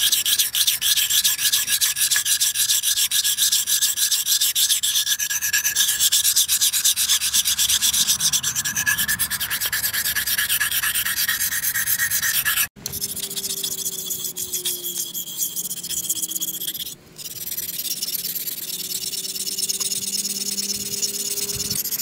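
A steel knife blade stroked rapidly back and forth on the fine side of a wet whetstone, a fast rhythmic scraping. After a cut about halfway through, the scraping goes on more quietly.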